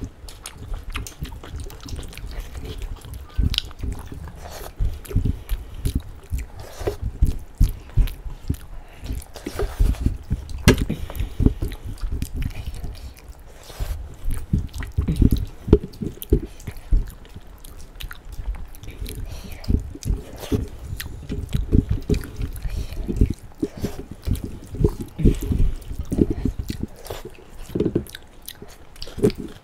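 Chewing and mouth sounds of two people eating rice and kidney-bean curry by hand, with the squish of fingers mixing the rice into the curry: a dense run of short, irregular smacks and clicks.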